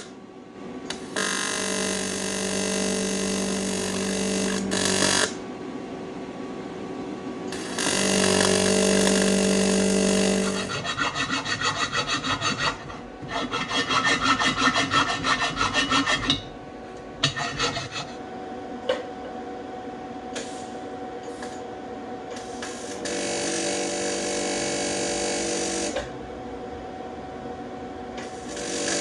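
Handheld rotary power tool cutting into a cracked cast aluminum wheel. It runs in several bursts of a few seconds each with a steady motor whine. In the middle stretch the bit bites with a fast rasping chatter.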